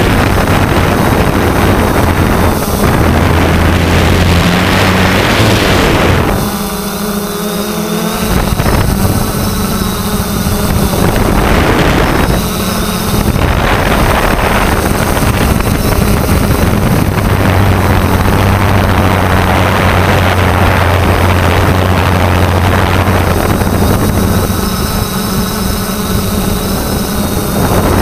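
3DR Solo quadcopter's motors and propellers running with a steady low hum, heard through the onboard camera's microphone under heavy wind rush. The noise dips briefly a few times.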